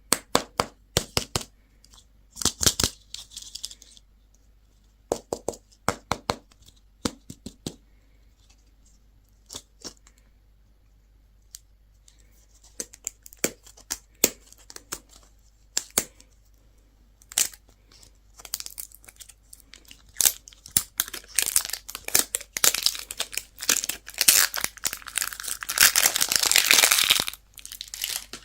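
Candy and toy packaging being handled, torn open and crinkled: scattered sharp clicks and taps for the first half, then dense tearing and crinkling of wrappers building up over the last third.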